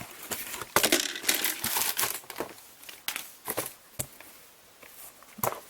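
Packaging being torn and crumpled open by hand: irregular crinkling and tearing rustles with small clicks, busiest in the first half and quieter near the end.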